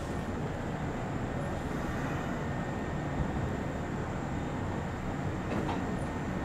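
Steady interior running noise of a Kintetsu commuter train, a low rumble with hiss, as it slows into a station stop.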